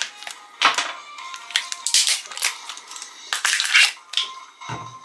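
Plastic sleeve label on a drink bottle crinkling and tearing in several short rustling bursts as it is cut and pulled off, over background music. A dull thump near the end.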